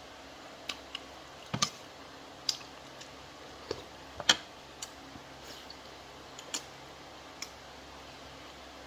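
Eating sounds while chewing beef shank bulalo: irregular short, sharp wet clicks and smacks of the mouth, about a dozen, the loudest about one and a half and four seconds in.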